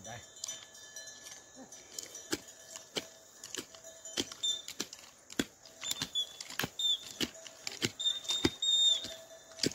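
Bell on a working bull jingling: irregular sharp metallic clinks, several a second at times, over a faint ringing tone.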